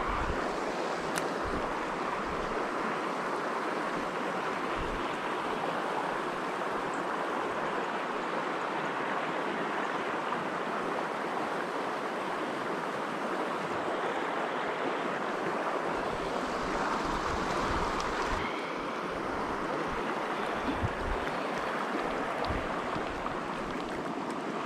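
Shallow river water flowing steadily, an even, unbroken rush of moving water.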